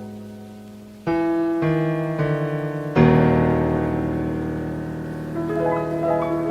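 Slow, gentle solo piano music: chords struck about a second in and again, louder, at three seconds, each left to ring and fade, with quicker notes entering near the end.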